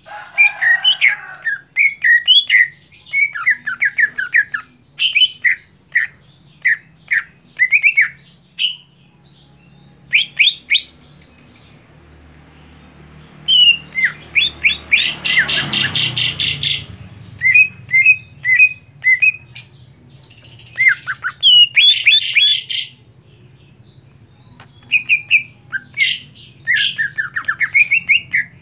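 Caged cucak hijau (green leafbird) singing: a varied, chattering song of quick chirps, trills and harsh squawky notes in repeated bursts with short pauses, busiest about halfway through.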